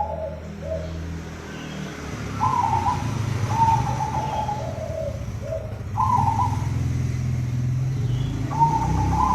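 Zebra dove (perkutut) singing: about three phrases of cooing, each opening on a higher note and falling into a string of lower coos. A steady low hum runs underneath.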